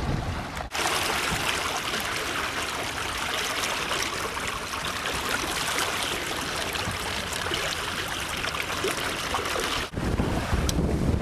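Water rushing and trickling along a sailboat's hull as it moves through the water, a steady hiss. It starts abruptly under a second in and cuts off sharply about a second before the end, where wind buffeting the microphone takes over.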